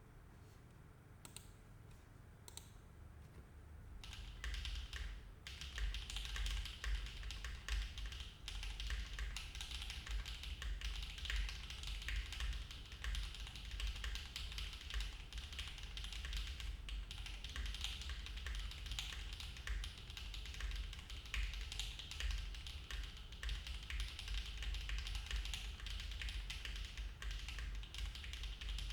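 Typing on a Paragon custom mechanical keyboard with stock HMX Macchiato switches, an aluminium plate, no foam and GMK keycaps. A few single keystrokes give way to fast, steady typing about four seconds in.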